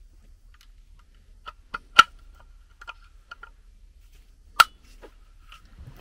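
Scattered metal clicks and clinks of a wrench working a fitting on a replacement furnace gas valve, with two sharper, briefly ringing strikes about two seconds and four and a half seconds in.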